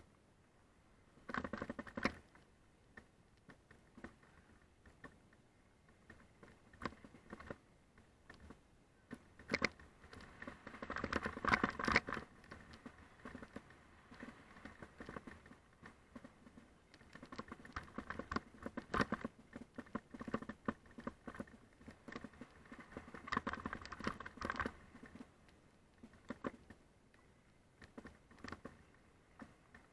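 Mountain bike rolling down a loose gravel trail: irregular clattering and knocking from the bike over the stones. It comes in several rough bursts a second or two long, with quieter rolling between them.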